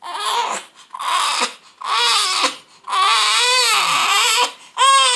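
One-month-old baby crying in a string of wailing cries with short breaths between them, the longest cry coming about three seconds in.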